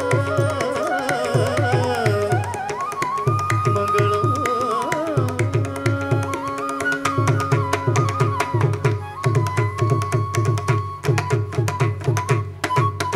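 Carnatic music accompanying a Bharatanatyam dance: a melody line with gliding ornaments over steady, fast hand-drum strokes. About halfway through the melody settles into longer held notes, and sharp percussive clicks grow denser toward the end.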